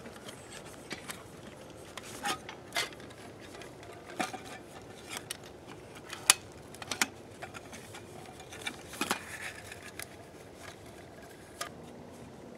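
Scattered light clicks, clinks and scrapes of a Toaks titanium 750 ml pot with its small stove nested inside being handled and packed away, the sharpest click about six seconds in.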